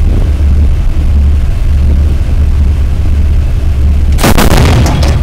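A naval deck gun fires a short burst of rapid shots about four seconds in, over a steady low rumble.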